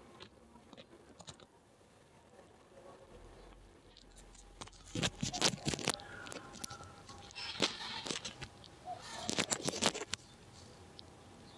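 Cats right at the microphone making bursts of close crackling and crunching, about five seconds in and again around eight and nine and a half seconds.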